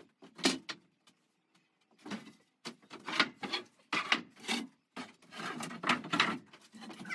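Wooden boards knocking and scraping against each other as they are handled on a pile of scrap lumber on a plank floor: a series of irregular clatters, the longest stretch of scraping near the end.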